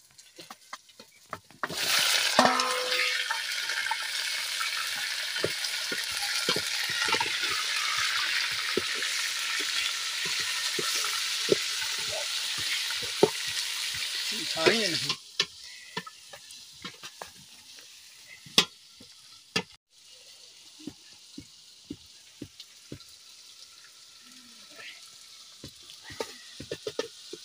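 Raw meat pieces frying in hot oil in a pot: a loud sizzle starts suddenly about two seconds in, as the meat goes in. About halfway it drops suddenly to a quieter frying hiss, with clicks and scrapes of a metal ladle stirring the pot.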